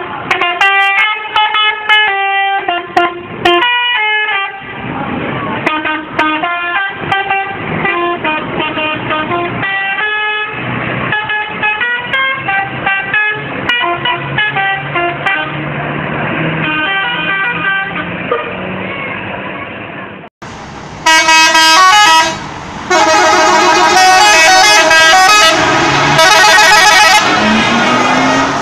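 Indonesian tour-bus 'telolet' horns: multi-tone musical air horns playing quick melodic tunes, the notes stepping up and down several times a second. After a sudden cut about twenty seconds in, a louder, fuller horn tune plays.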